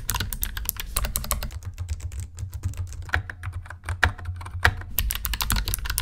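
Fast, continuous typing on a Keychron K3 V1 low-profile mechanical keyboard with clicky blue switches: a dense, uneven stream of sharp key clicks.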